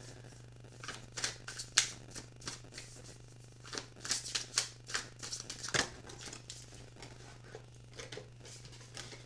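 Tarot cards being shuffled and handled: irregular soft clicks and snaps of the cards, over a steady low hum.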